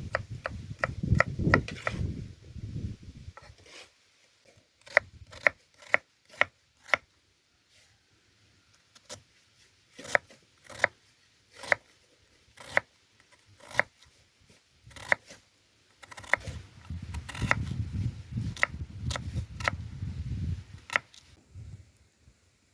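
Knife chopping on a wooden board: separate sharp knocks, one or two a second, with low rustling in between at the start and again later.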